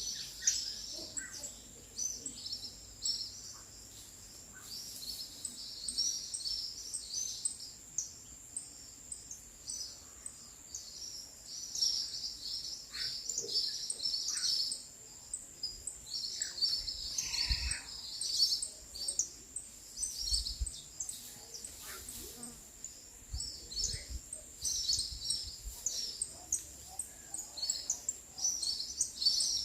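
Many small birds chirping and twittering in quick, overlapping bursts, with a steady high-pitched tone running underneath.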